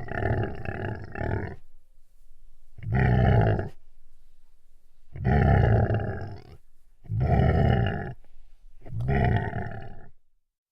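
Deep animal growls, five separate growls of about a second each with short pauses between them, ending about a second before the end.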